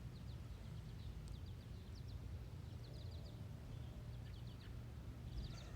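Faint outdoor background: a steady low rumble, with small birds chirping in quick runs of short high notes every second or so.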